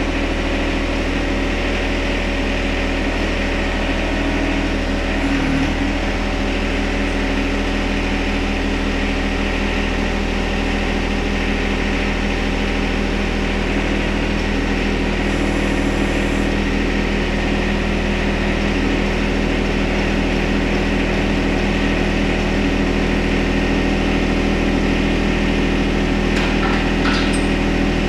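John Deere 1025R subcompact tractor's three-cylinder diesel engine running steadily.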